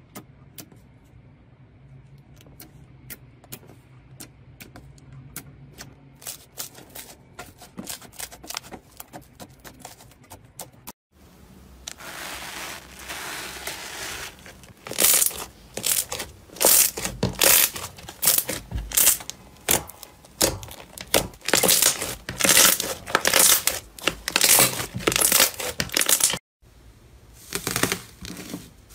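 Hands working slime. At first it gives soft, sparse sticky clicks. Then, as a stringy web-like slime is stretched and pulled apart, it makes dense, loud crackling and popping. Near the end, gold foil crinkles as it is pressed into a crumbly slime.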